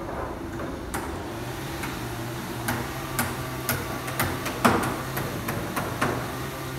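Hammer blows from roofers working on a roof, sharp knocks about two a second with the loudest a little before five seconds in, over a steady low hum.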